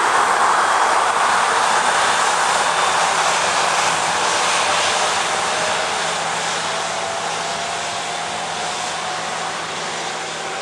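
Boeing 737-800's CFM56-7B jet engines running at taxi power: a steady rushing noise with a faint whine that slowly rises in pitch. It fades gradually as the airliner taxis away.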